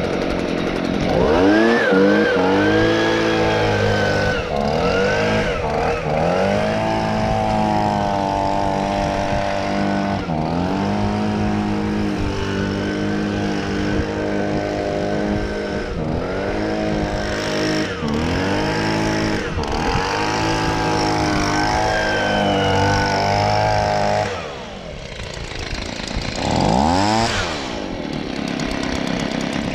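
Stihl BG55 handheld leaf blower's two-stroke engine running on a newly fitted carburetor, being tested after an idle adjustment and revved up and down again and again every few seconds. About 24 seconds in it settles to a quieter idle, then is revved again.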